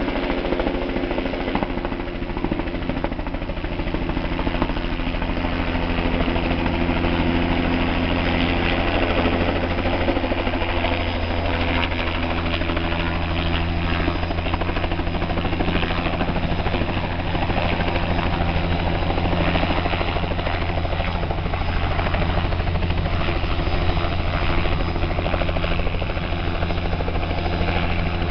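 Helicopter flying in low over the water and setting down close by, its rotor and engine running steadily, a little louder from about five seconds in.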